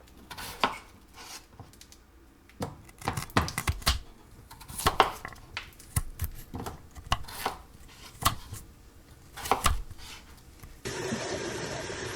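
Kitchen clatter: irregular knocks and clinks of cookware and utensils. About eleven seconds in, a steady hiss starts suddenly.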